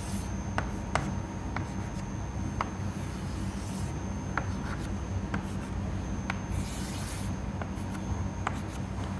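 Chalk writing on a blackboard: a few longer scratchy strokes as lines are drawn and about eight short sharp taps and clicks as arrowheads are marked. A steady low room hum runs underneath.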